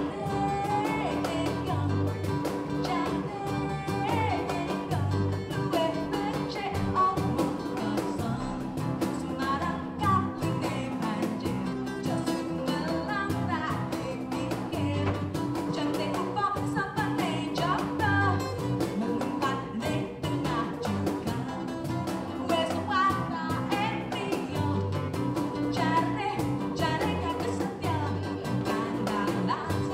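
Live keroncong-style acoustic band: a woman singing over ukulele, acoustic guitar, bass guitar and cajón playing a steady beat.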